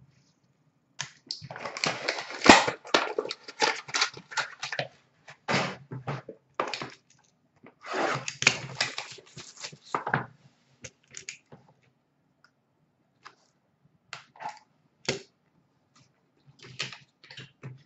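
Hands handling trading-card packaging and plastic card cases: two long stretches of rustling and crinkling, then scattered clicks and taps.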